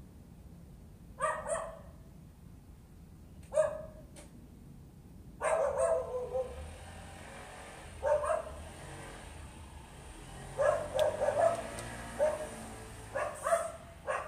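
A dog barking in short bouts of one to several barks every couple of seconds, with pauses between. This is persistent nuisance barking, set off by a delivery vehicle stopped nearby, and it goes on until the vehicle leaves.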